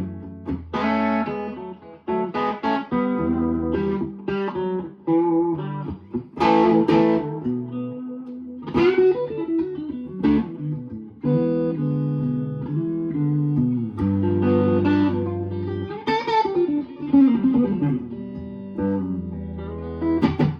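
Electric guitar playing a mix of chords and single-note lines, with several string bends.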